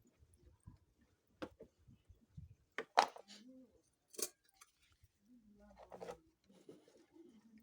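A few sharp clicks and knocks, the loudest about three seconds in and another about a second later, with faint low handling noise between them.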